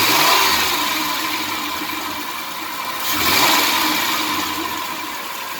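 2003 Dodge Grand Caravan's 3.3-litre V6 engine revved twice, about three seconds apart, each time rising and then settling back toward idle. No belt chirp or hiss now that a new serpentine drive belt is fitted; the old worn belt was the cause of the noise.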